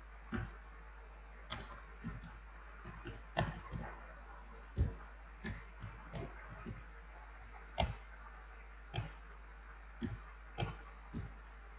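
Computer keyboard keys being typed slowly and unevenly: single sharp clicks, some close together and some a second or more apart, over a steady low hum.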